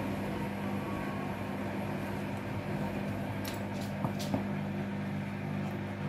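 Hoover front-loading washing machine running with excess suds in the drum, its suds-lock state, giving a steady hum. A few light clicks sound about four seconds in.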